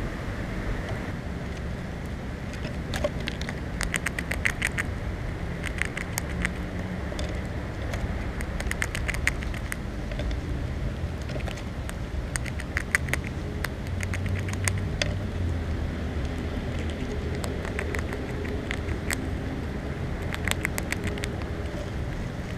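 Short bursts of rapid, crisp clicking from a squirrel right at the camera, coming every few seconds over a low steady rumble.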